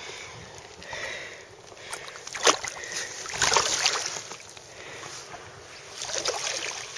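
Water splashing and sloshing as a northern pike is released into shallow water and swims off: a sharp splash about two and a half seconds in, then a longer stretch of splashing, and more sloshing near the end.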